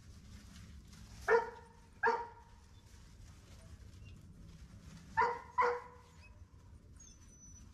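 Giant Schnauzer puppy barking: two short, high yapping barks about a second in, then two more close together about five seconds in.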